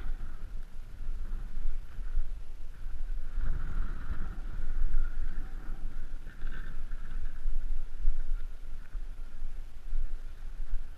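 Wind buffeting the microphone, a low rumble that rises and falls unevenly, with a fainter steady hiss behind it.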